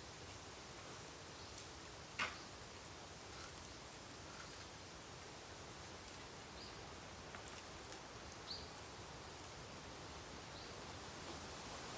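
Bamboo bonfire burning quietly: a soft steady hiss with a few scattered crackles, one sharper pop about two seconds in.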